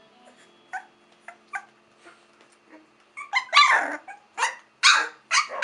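Three-week-old Olde English Bulldogge puppies yipping and crying. A few faint, short yips come first, then from about three seconds in a run of loud yelps, several a second.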